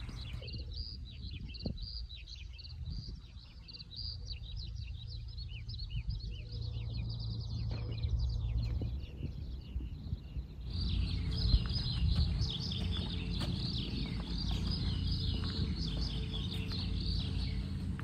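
Outdoor ambience of many small birds chirping busily, short rapid calls over a steady low rumble. About ten and a half seconds in the mix changes at a cut and becomes louder and denser.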